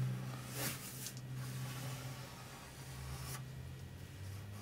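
Pencil sketching on paper: scratchy strokes of graphite across the sheet, a few of them stronger, over a low steady hum.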